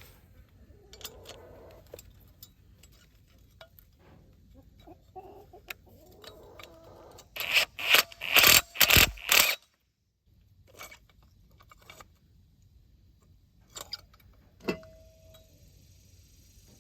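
Metal hand work on a trailer-hitch coupler: scattered clinks and taps of loose hardware, with a quick run of about five loud metal bangs in the middle and a single ringing clink near the end. Chickens cluck faintly in the background.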